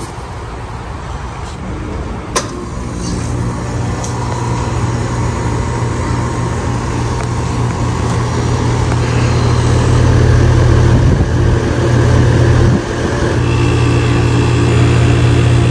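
Goodman central A/C condenser starting up: a sharp click about two seconds in, then the condenser fan and the compressor's low, dull hum, building over several seconds and running steadily. The compressor is now starting and running on its new capacitor, the sign that the failed capacitor was the fault.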